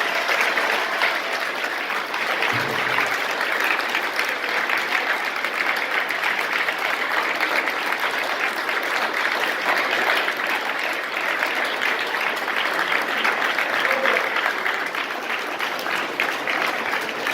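A banquet audience applauding steadily and at length: dense, sustained clapping from many people.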